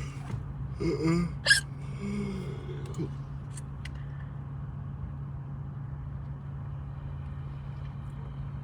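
A person hiccups once, sharply, about a second and a half in, with short voiced sounds just before and after it. Under it runs a steady low cabin hum from a car.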